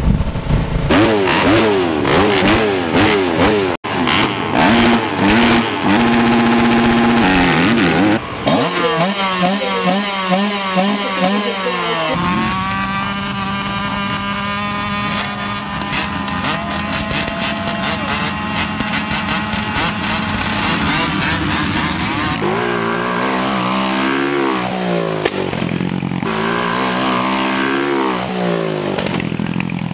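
Dirt bike engines revving up and down in quick sweeps. For about ten seconds in the middle, several bikes hold a steady high rev at a motocross start gate. The up-and-down revving then resumes.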